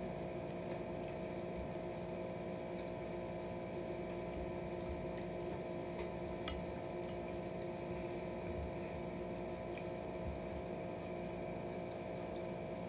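Steady background hum with several fixed tones, under quiet eating sounds: a few light clicks of a plastic fork and mouth, the sharpest about six and a half seconds in.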